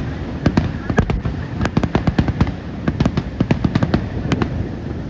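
Fireworks display going off: a rapid run of sharp bangs and crackles, several a second, over a steady low rumble, thinning out near the end.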